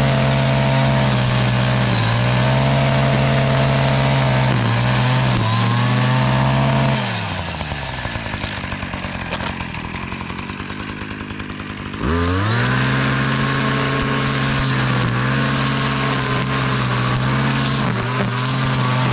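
Stihl MM56CE Yard Boss multi-tool's small two-stroke engine driving an FS-MM string trimmer head. It runs at high throttle, drops back to idle for about five seconds in the middle, then revs up again and holds.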